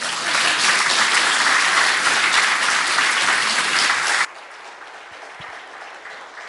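An audience applauding, which stops abruptly about four seconds in. A couple of faint thumps follow.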